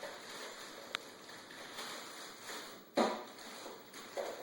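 Mini husky puppies at play, scuffling, with a brief high squeak about a second in and a louder sharp sound about three seconds in.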